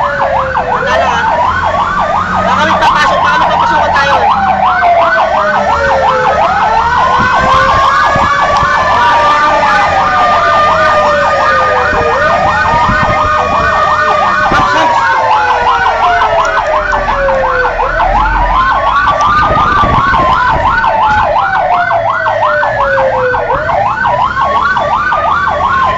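Fire engine sirens sounding on the move: a fast yelp repeating about three times a second, layered with a slower wail that climbs and then falls over several seconds, with a low rumble underneath.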